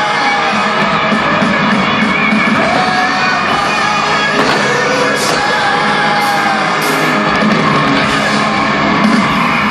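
Live rock music with singing, played loud over a stadium PA and picked up from the stands in a large roofed arena.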